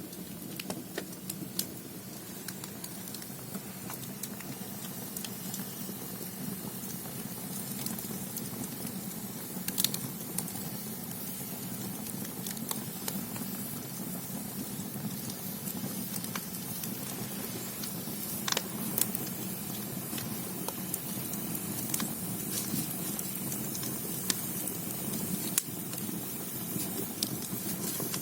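Firewood burning in the agungi firebox of a Korean ondol floor-heating system: a steady low rush of the fire with scattered sharp crackles and pops. The loudest pops come about ten seconds in and again near twenty-five seconds.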